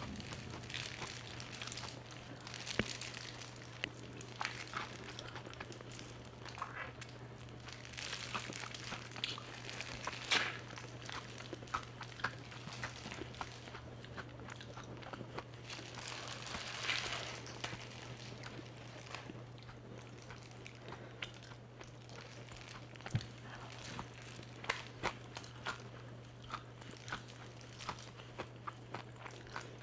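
Close-up biting and chewing of crispy BBQ Peel Crunch fried chicken: many irregular crisp crunches as the coating breaks, over a steady low hum.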